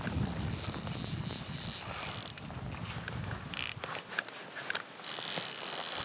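Fly reel's click-and-pawl drag buzzing as line is pulled off it, in three spurts: a long one at the start, a short one a little past the middle, and another near the end.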